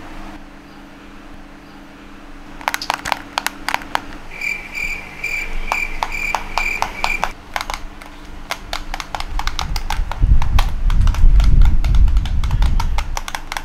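Plastic radio-controlled toy car clicking and rattling in quick irregular runs. A pulsing electronic beep sounds for about three seconds, and a loud low rumble comes near the end.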